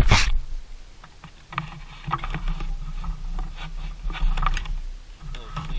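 Electrical cable being pulled through behind a plastic van interior panel: irregular scraping, rustling and light knocks that start about a second and a half in.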